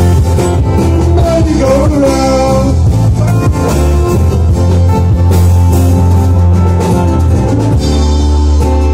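Live band playing: electric bass, strummed acoustic guitars and drums, with a heavy, steady bass line.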